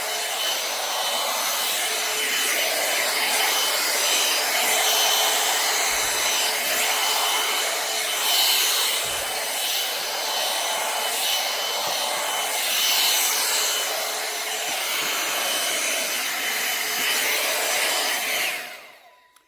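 Hot air brush running: a steady rush of air from its fan with a faint motor whine, and the brush rubbing through hair. It switches off and the sound dies away near the end.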